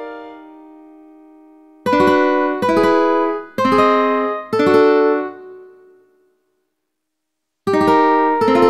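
Ukulele chords played back one at a time by a chord app as each diagram is tapped. A piano chord dies away first, then four ukulele chords come about two seconds in, each ringing out. After a short silence, two more ukulele chords sound near the end.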